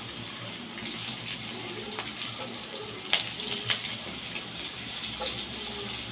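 Sliced garlic frying in hot oil in a wok, the oil sizzling and bubbling steadily, with a few sharper crackles about one, two, three and nearly four seconds in.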